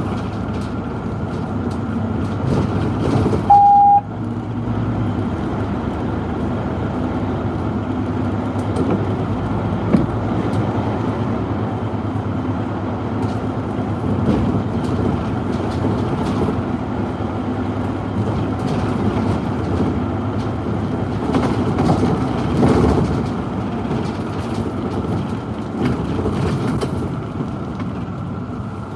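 City bus on the move, heard from the driver's cab: steady engine and road noise, with a short electronic beep about three and a half seconds in.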